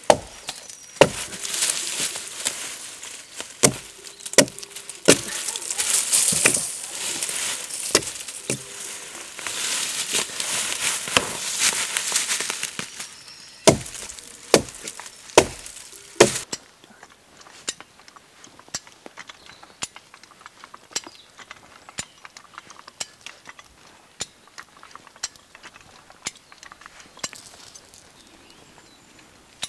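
Axe blows striking a fallen log, about a dozen sharp, irregular hits that chip off bark. After about sixteen seconds the chopping stops and only faint scattered clicks remain.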